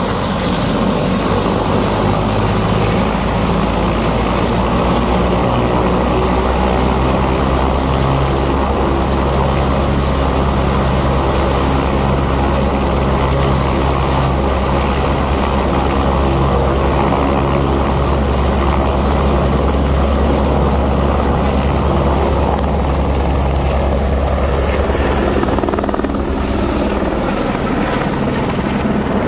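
Light single-engine helicopter running with its rotor beating steadily and a high turbine whine that rises about a second in. Near the end it lifts off and the sound shifts as it climbs away overhead.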